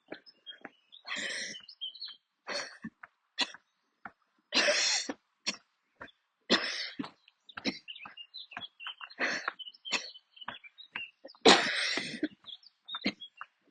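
A woman's coughing fit: a string of about a dozen harsh, chesty coughs and throat-clearings in uneven bursts, the loudest a long one about eleven and a half seconds in. It is a lung coughing attack that she coughs through without stopping.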